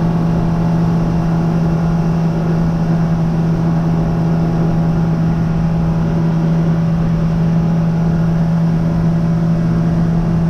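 Boat's outboard engine running at a steady cruising speed, a constant hum with a low rush beneath it that does not change.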